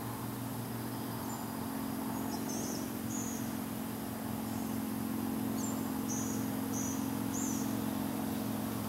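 Outdoor ambience: a steady low hum, with short, very high-pitched chirps from a small animal in two clusters, a couple of seconds in and again around six to seven seconds in.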